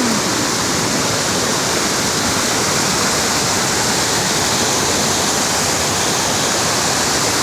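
Waterfall water rushing: a steady, loud, unbroken roar of falling water.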